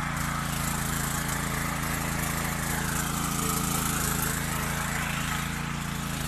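Small engine of a mini tractor running steadily, with a higher rushing noise that falls in pitch about halfway through and rises again.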